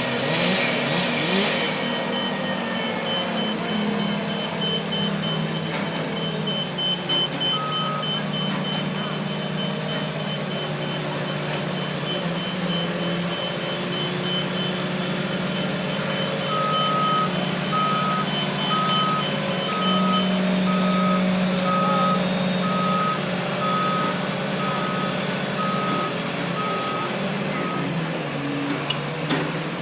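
Heavy diesel machinery at a crane tree-removal job running steadily, with a backup alarm beeping at about one and a half beeps a second from just past halfway until near the end.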